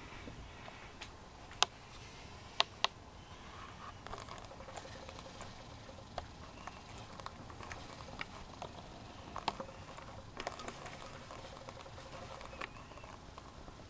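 Scattered small clicks and light taps from a model airliner being handled, with three sharp clicks in the first three seconds.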